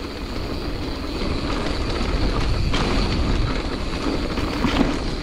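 Giant Trance 27.5 mountain bike rolling along a dirt trail: a steady, rumbling noise of tyres and riding that grows louder as it goes, with a couple of sharp knocks.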